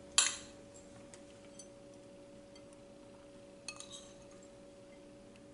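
A sharp clink of a small ceramic bowl against a glass serving bowl about a quarter second in, then a few light ticks and a brief cluster of clicks near four seconds as sliced green chillies are tipped onto a chickpea salad. A faint steady hum sits underneath.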